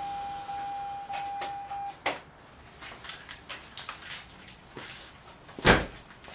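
A steady electronic tone for about two seconds that cuts off, then a few light clicks and one loud thump near the end.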